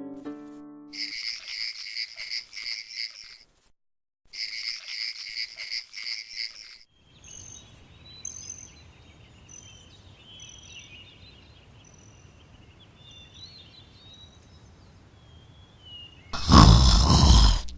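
Nature ambience: fast, evenly pulsing high chirps, like a frog or insect chorus, in two stretches a second apart. This gives way to a quiet low rumble with short, scattered high chirps. A loud noisy sound cuts in near the end.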